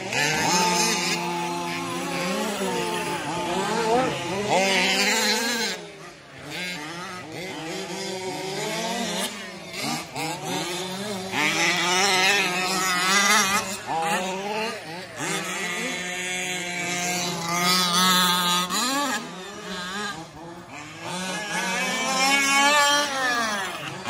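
Several radio-controlled 4WD racing trucks running, their motors revving up and down as they race, with many overlapping pitches rising and falling.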